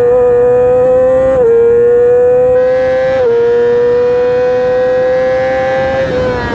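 Yamaha R6 inline-four engine at high revs under full throttle, its pitch climbing slowly. It dips briefly on quick upshifts about one and a half and three seconds in, then eases near the end.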